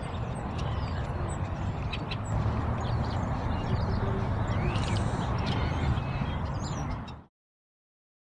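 Wind buffeting the microphone outdoors, with scattered short, high-pitched calls over it; the sound cuts off abruptly about seven seconds in.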